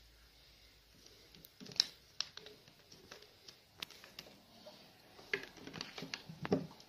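Light clicks and taps of a plastic SodaStream bottle being handled, with a sharp click about two seconds in. Near the end comes a denser run of clicks and scraping as its green screw cap is put on.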